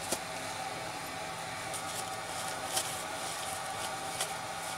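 A steady mechanical hum holding several pitched tones, with a few faint short ticks over it.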